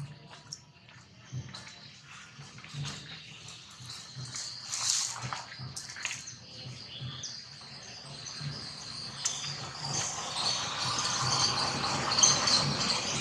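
Baby macaque squeaking and crying, the cries growing louder and more continuous over the last few seconds.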